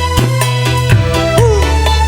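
Song accompaniment playing between sung lines: held notes over a bass, with regular drum hits and a short sliding note about one and a half seconds in.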